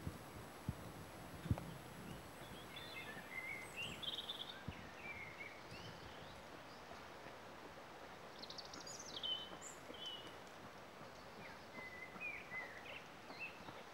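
Small woodland birds singing: scattered short chirps and trills over a steady outdoor hiss. A few short low thumps come in the first two seconds, the loudest about a second and a half in.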